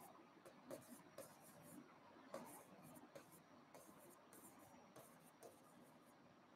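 Faint scratching and light taps of a stylus writing on an interactive display screen, in short irregular strokes.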